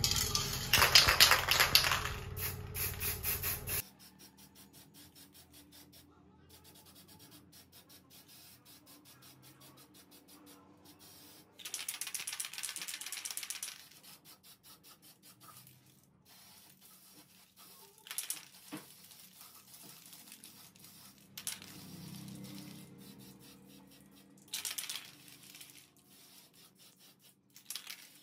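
Aerosol spray-paint can hissing in bursts: one lasting about two seconds, then a couple of shorter ones. The opening few seconds hold a louder, rapid clattering handling noise.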